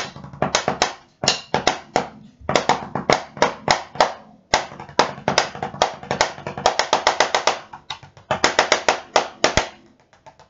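Drumsticks striking a drum practice pad in fast runs of single strokes, broken by short pauses, some strokes louder than others: a stick-technique exercise practised at quiet and loud dynamics.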